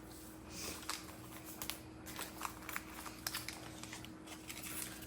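Small paper seasoning packet being handled and torn open, with scattered crinkling and rustling and light clicks.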